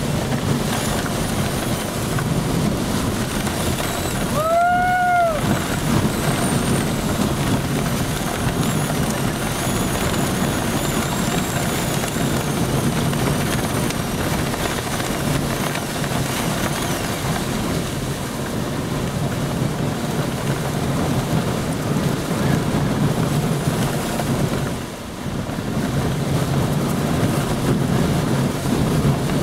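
Hurricane wind gusting hard with driving rain, buffeting the microphone as a loud, steady rushing noise. A brief rising-then-falling tone sounds about five seconds in.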